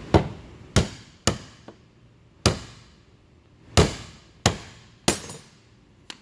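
A hammer striking seven times, irregularly spaced, on the fuel pump's metal lock ring to knock it around and free it from the Ford E250's fuel tank.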